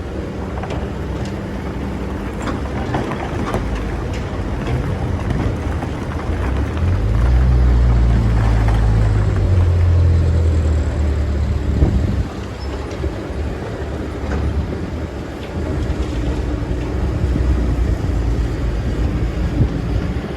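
Excavator's diesel engine running steadily, swelling louder and fuller for several seconds in the middle, with scattered clicks and a sharp knock about twelve seconds in.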